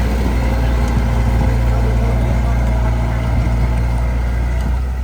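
Heavy-equipment diesel engine running steadily with a low, even hum.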